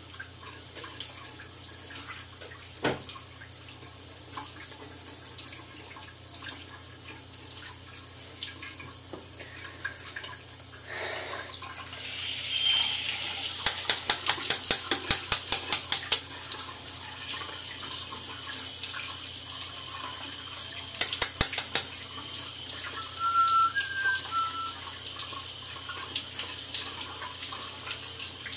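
Tap running into a bathroom sink during a shave, the flow getting louder about halfway through. While the razor is rinsed there is a quick run of sharp taps lasting a couple of seconds, and a shorter run a few seconds later.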